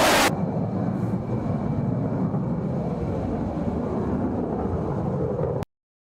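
Military jet's engines. A loud jet noise breaks off abruptly just after the start, then a lower, steady rumble of the jet farther off runs on until it cuts off suddenly near the end.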